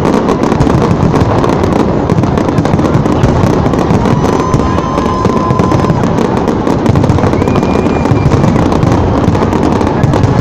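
Large fireworks display: a dense, continuous barrage of shell bursts and crackling, with a few thin whistles in the middle.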